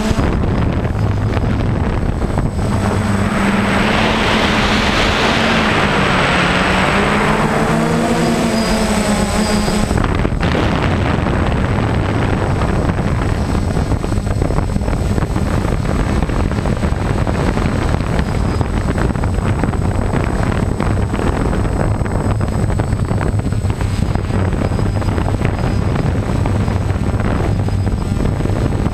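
DJI Phantom quadcopter's electric motors and propellers buzzing loudly, mixed with wind rush. The motor pitch wavers up and down in the first ten seconds, with a swelling hiss in the middle of that stretch. About ten seconds in the sound changes abruptly to a steadier, rougher propeller noise.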